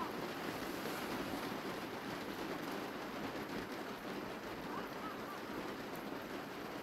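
Steady rushing outdoor noise, with a couple of faint, short chirps about five seconds in.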